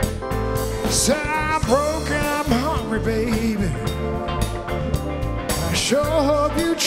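Electric blues band playing live, electric guitar and bass under a lead line of bent, wavering notes.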